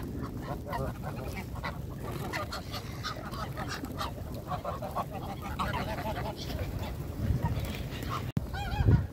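A flock of geese, mostly greylag geese, honking and calling close by, many short calls overlapping, with a louder call near the end.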